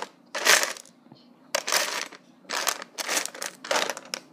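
Lego bricks being handled and sorted by hand: four short bursts of plastic rattling and rustling with brief pauses between.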